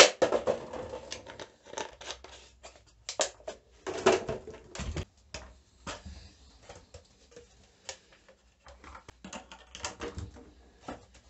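Plastic bottles being handled: irregular clicks, crackles and knocks as loop-fitted caps are screwed onto them and the bottles are hung on wall nails, with a duller thump about five seconds in.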